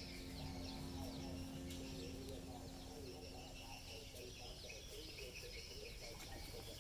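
Faint outdoor ambience with many small, quick chirping calls, a continuous chatter of small creatures such as birds or insects, over a light background hiss.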